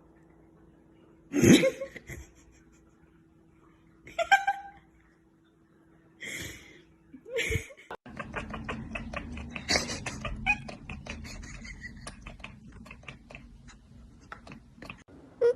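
Domestic cat meowing, four short separate calls in the first half. After that comes a rapid run of clicks and rustling, with a few brief cries over it.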